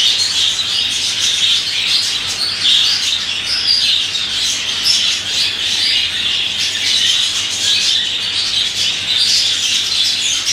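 Budgerigar chattering without a break, a dense stream of short chirps, warbles and squawks.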